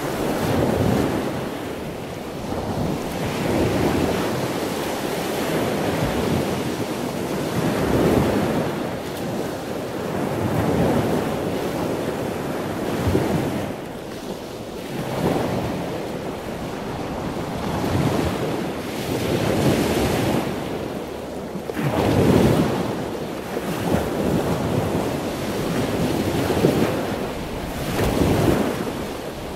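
Ocean surf breaking and washing up a sandy beach, swelling and easing every few seconds.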